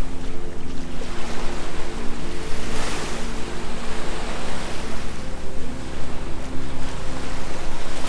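Ocean surf washing onto a beach, swelling louder about three seconds in, over low sustained tones that step between pitches.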